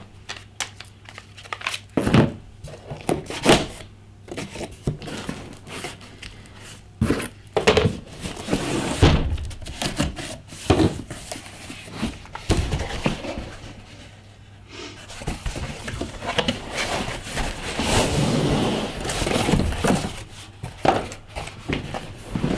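Cardboard boxes being handled on a table: several sharp knocks and thumps, with stretches of cardboard rustling and scraping as the inner box is slid out of the shipping carton.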